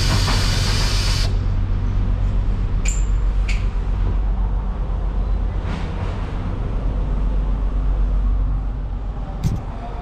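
Steady low machine rumble, with a loud hiss that cuts off suddenly about a second in and a few scattered sharp knocks.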